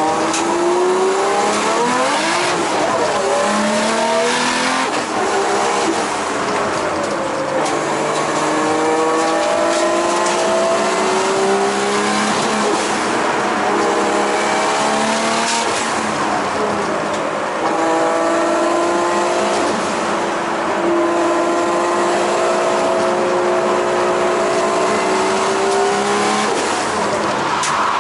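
Nissan Skyline R32 GTS-T's turbocharged straight-six (RB20DET), heard from inside the cabin, driven hard around a circuit. The engine pitch climbs steadily through each gear, drops at each shift, and falls away under braking before climbing again.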